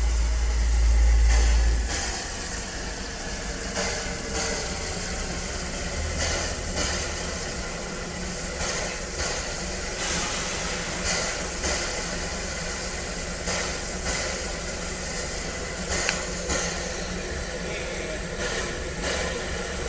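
Small steam tank locomotive, an A1X Terrier, standing at the platform with steam hissing steadily, with scattered light clicks and knocks. A low rumble comes in the first two seconds as it draws up.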